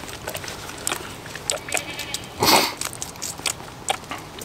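Kid goat sucking fast at a bottle nipple: a run of quick, wet clicks and smacks, with one louder noisy burst about two and a half seconds in.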